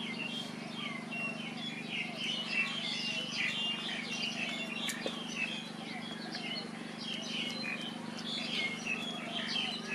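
Many small birds chirping continuously, short rapid calls overlapping one another, over a steady low hum.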